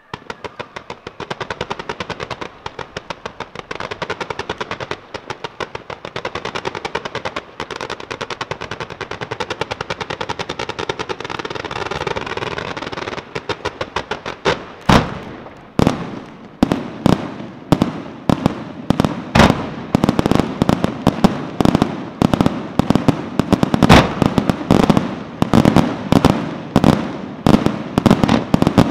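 Aerial fireworks display starting suddenly with a dense, rapid-fire run of cracking reports. About 14 seconds in it turns into louder, separate bangs of bursting shells and comets, several a second.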